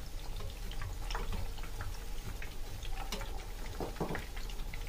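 Egg-dipped chicken kababs deep-frying in hot oil: a steady bubbling sizzle with scattered small pops, and a couple of sharper clicks about three and four seconds in as a metal spatula turns them.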